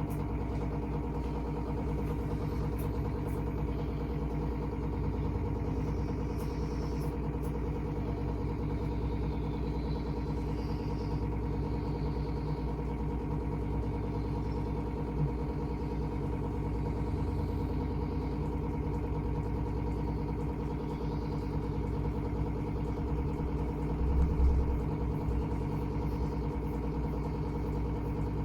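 Steady mechanical hum made of several constant low tones, unchanging throughout, with a brief louder low bump about 24 seconds in.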